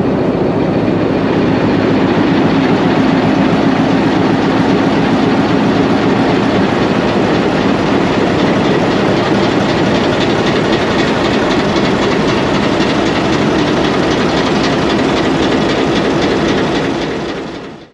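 PHA-20 diesel-electric locomotive running at standstill at the head of a stopped passenger train: a loud, steady engine drone.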